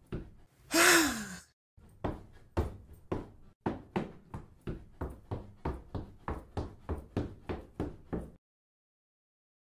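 A dancer's feet thudding and landing on a studio dance floor in an uneven run of about two a second, with one loud breathy burst falling in pitch about a second in. The sound cuts off abruptly to silence near the end.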